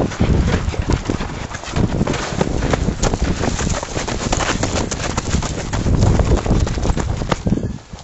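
Running footsteps on dirt with wind buffeting and rubbing on a handheld camera's microphone, a dense run of irregular knocks and rumble. It drops abruptly to a quieter level just before the end.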